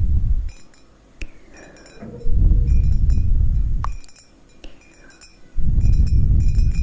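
Slow breaths blown close into a microphone, each lasting about two seconds, with light taps and clinks in the pauses between them.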